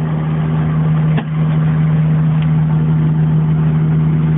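A steady low mechanical hum, with a single click about a second in.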